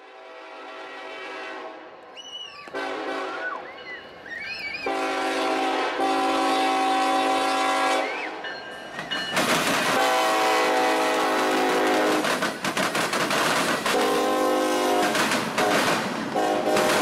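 Norfolk Southern diesel locomotive's multi-chime air horn blowing several long blasts as the freight train approaches. From about nine seconds in, the loud rumble and wheel clatter of the double-stack freight cars rolling over the diamond crossings join it, with more short horn blasts on top.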